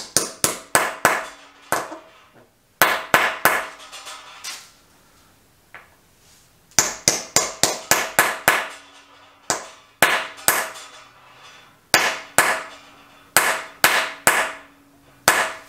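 Hammer striking a Keysert installation tool, driving the insert's locking keys (prongs) down into a repaired exhaust-manifold stud hole on an SR20DET engine. Sharp metallic blows come in quick runs of about three a second, separated by short pauses, each blow ringing briefly.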